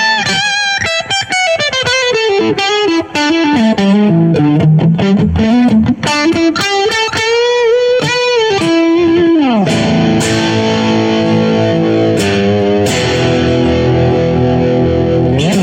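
Aiersi TL10 Telecaster-style electric guitar played with effects and light distortion: a single-note lead line with string bends and vibrato, then about nine and a half seconds in a slide down into repeated sustained chords. It ends with a slide up.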